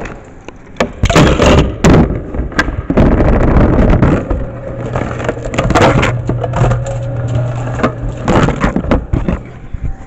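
Rubbing, scraping and knocking on a small body-worn camera as its lens is covered and moved against clothing, loud at the microphone. A steady low hum runs under it from about three seconds in until near the end.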